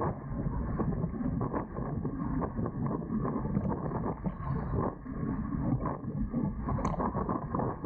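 Wind buffeting the microphone and water rushing along the hulls of a Dart 18 catamaran under sail, muffled and constant, with a small sharp knock about seven seconds in.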